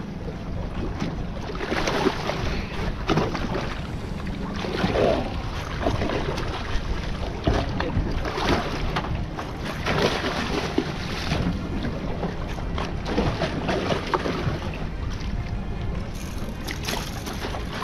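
Wind on the microphone and choppy water against a small boat's hull, with irregular splashes as a hooked fish thrashes at the surface beside the boat.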